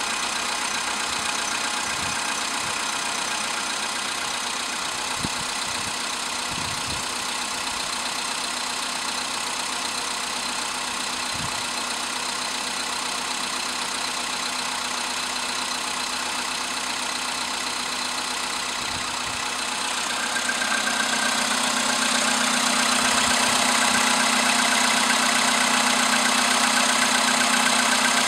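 VW Polo Sedan's CFNA 1.6-litre four-cylinder petrol engine running cold after an overnight stand, with a knock from the engine. It gets louder about two-thirds of the way through.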